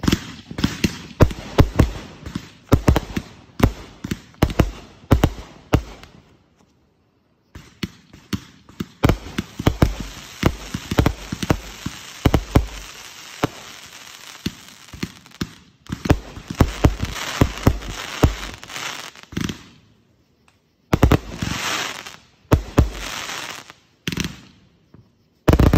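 Fireworks display: a rapid, irregular series of sharp bangs from aerial bursts, with stretches of dense crackling in the second half. The sound stops abruptly a few times, with short gaps of near silence.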